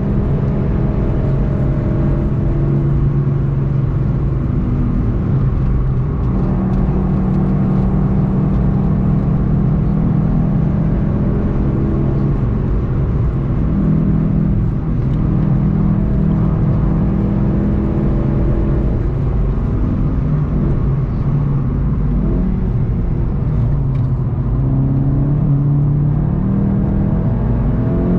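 In-cabin sound of a VW Golf 7 GTI TCR's turbocharged 2.0-litre four-cylinder driven hard on track, its note rising and falling with throttle and gear changes over road and wind noise.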